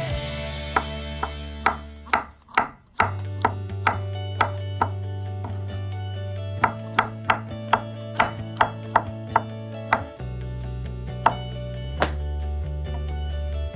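Kitchen knife slicing button mushrooms on a wooden cutting board: runs of sharp knocks, about two or three a second, with short pauses between runs.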